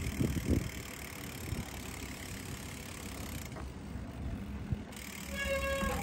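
Bicycle freewheel hub ticking as the bike coasts, with a few low rumbles at the start and a short high squeal near the end.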